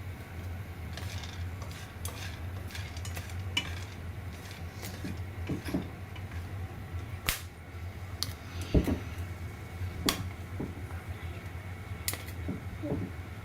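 Kitchen utensils clinking and knocking against dishes and a pan, in scattered sharp clicks over a steady low hum.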